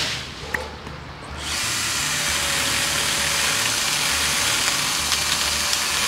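A power saw starts about a second and a half in and runs steadily, cutting through a tree limb.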